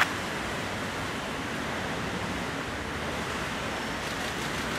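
Steady, even rushing background noise of an indoor diving pool hall.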